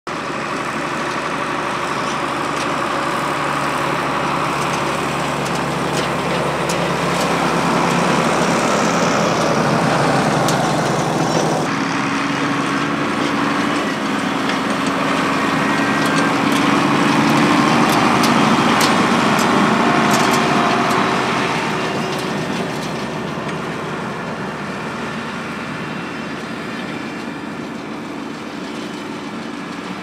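Deutz-Fahr Agrotron 135 diesel tractor engine running steadily under load, pulling a Lely Welger RP-235 round baler as it picks up hay. The sound grows louder as the rig comes close and fades as it moves away near the end.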